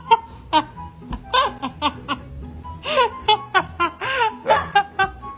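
Background music with repeated short bursts of laughter over it.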